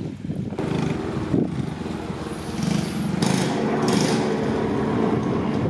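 Small single-cylinder engine of a cadet go-kart running at low speed.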